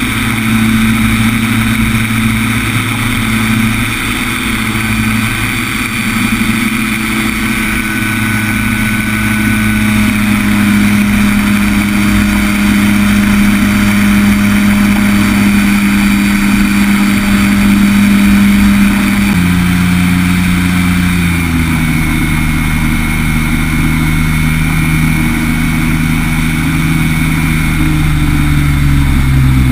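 Ultralight trike's engine and two-blade pusher propeller running steadily in flight, with wind noise over the microphone. About two-thirds of the way through, the engine note drops in pitch in a couple of steps as the engine slows.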